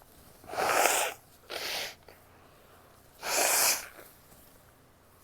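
A sick woman sneezing: two strong noisy bursts about half a second and about three seconds in, with a shorter burst between them.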